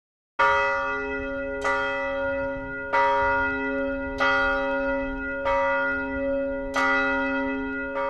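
A single church bell tolling, struck about every 1.3 seconds, each stroke ringing on into the next; it starts about half a second in.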